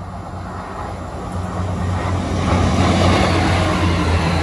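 Two coupled Class 158 diesel multiple units passing through the station: a steady diesel drone with wheel and rail noise, growing louder as the train draws close and goes by.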